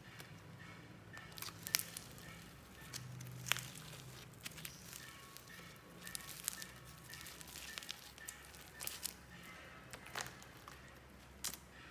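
Clear slime mixed with soft clay being squeezed and kneaded by hand: irregular sticky clicks and small pops, a few sharper ones standing out, over faint background music.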